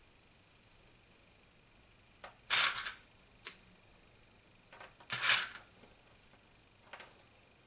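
Plastic sewing clips clicking shut as they are pressed onto layered sweatshirt fabric, with brief rustles of the cloth being handled. The clicks come in a few small clusters.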